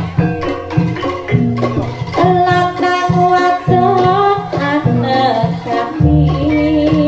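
Live Javanese jaranan ensemble music: struck metal gamelan-style keys and drums keep a steady beat under a held melodic line that steps from note to note.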